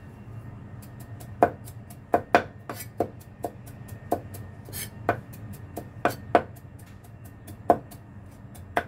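Cleaver-style knife mincing ginger on a wooden chopping board: irregular sharp knocks of the blade striking the board, roughly two a second, starting about a second and a half in.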